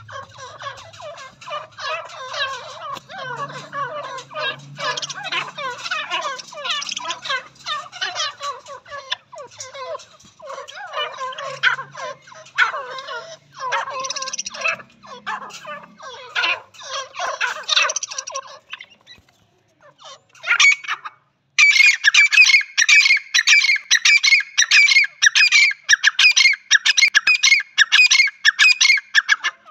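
Grey francolins calling. First comes a long stretch of rapid, jumbled chattering. Then, after a short pause about 21 seconds in, one bird gives a loud, evenly repeated call at about two to three notes a second.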